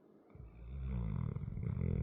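Large dog snoring: one long, low snore that starts about a third of a second in and grows louder toward the end.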